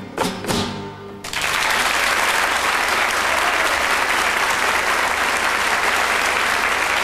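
Flamenco guitars end the piece with two final strummed chords that ring out, then audience applause breaks out about a second in and carries on steadily.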